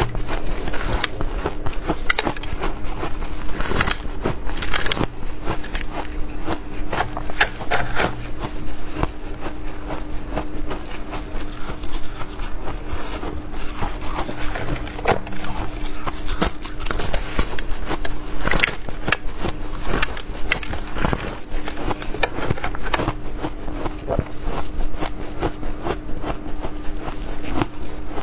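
Frozen shaved ice crunching, bitten and chewed and crumbled in a gloved hand: many sharp, crackling crunches in close succession. A faint steady hum runs underneath.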